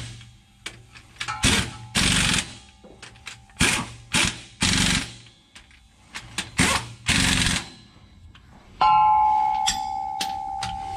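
Impact wrench driving the parking brake assembly's mounting bolts home on the transmission tail housing, in about eight short rattling bursts with pauses between them. Near the end a sudden metallic clang rings on and slowly fades.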